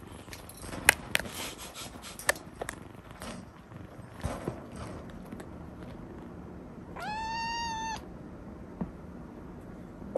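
A kitten meowing once, high-pitched and about a second long, rising at its start, about seven seconds in. Before it, several sharp clicks and rustles as the kitten plays with a plush toy against a wire cage; the clicks are the loudest sounds.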